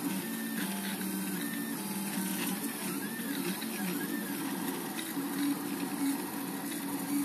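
Portabee RepRap 3D printer printing: its stepper motors whine in steady tones that step and glide up and down in pitch as the print head moves around the part.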